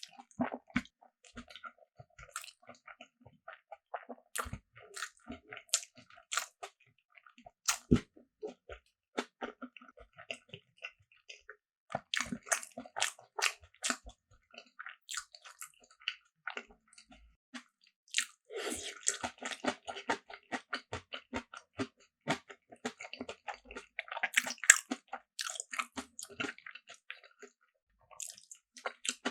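Close-miked eating sounds: crunchy bites and chewing, a rapid string of sharp mouth clicks and crackles, with a denser, wetter stretch of chewing about two-thirds of the way through.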